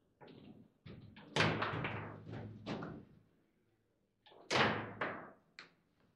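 Table football play: a string of sharp clacks from the ball and the plastic players on the rods, with two loud bangs, one about a second and a half in and one about four and a half seconds in, each ringing on for about a second.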